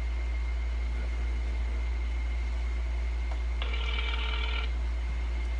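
Telephone ringback tone heard through a phone's speakerphone while an outgoing call waits to be answered: one ring about a second long, a little past the middle, over a steady low hum.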